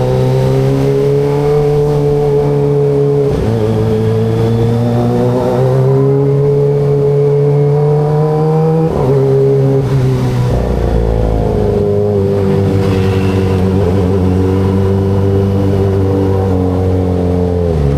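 Kawasaki ZX25RR inline-four motorcycle engine and exhaust running at steady cruising revs, the pitch wavering slightly as the throttle changes. Its note shifts briefly about 3 seconds and 9 seconds in, and dips and climbs again near the end.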